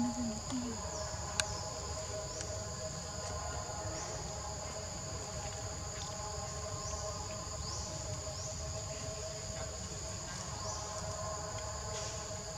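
Outdoor insect chorus: a steady high-pitched buzz with a short rising sweep about once a second, over a low rumble. A single sharp click sounds about a second and a half in.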